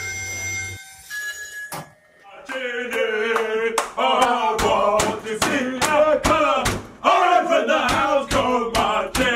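A group of young men shouting and chanting loudly together, with sharp hand claps through it. Two short steady tones come before the shouting starts.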